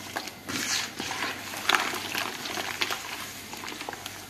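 A bare hand mixing a runny liquid mixture of melted butter, water and vinegar in a plastic bowl: irregular wet swishes and splashes.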